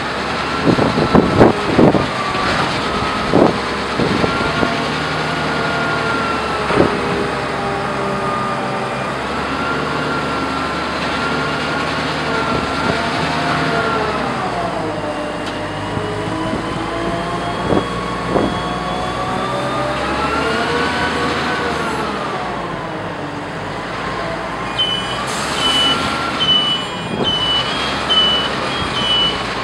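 Reachstacker's diesel engine running under hydraulic load, its pitch rising and falling over several seconds as it works the boom with a tank container on the spreader, with a few metallic knocks in the first few seconds. Near the end a high warning beeper starts, sounding about twice a second.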